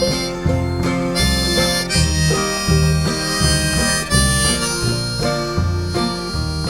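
Instrumental break in a song: a lead melody of held notes over plucked guitar and a bass line that steps from note to note about twice a second, with no singing.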